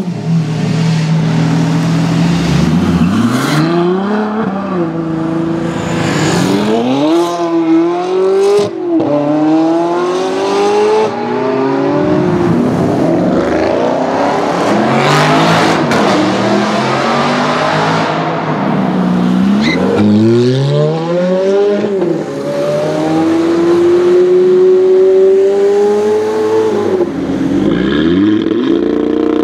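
High-performance car engines revving hard and accelerating away, one car after another, the engine note climbing again and again. First comes a Lamborghini Aventador's V12, then a Porsche Panamera echoing in a tunnel, then an Audi estate near the end.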